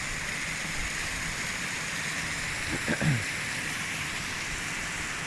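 Waterfall rushing steadily, an even hiss of falling water. A brief voice sound comes about three seconds in.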